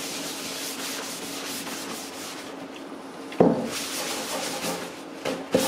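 A cloth wetted with acetone rubbing back and forth over a lightly sanded wooden tabletop, a steady scratchy wiping, with a knock about three and a half seconds in and another just before the end.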